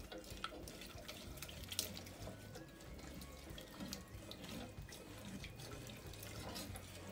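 A whisk stirring milk into a flour-and-butter roux in a stainless steel saucepan: faint liquid swishing with scattered light clicks of the whisk against the pot, to break up lumps in the white sauce.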